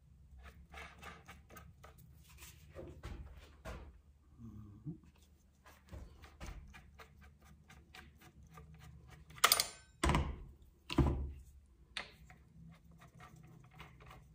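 An angle grinder and its parts being handled on a work surface: light clicks and rattles, then three louder knocks about ten seconds in, the first with a brief metallic ring.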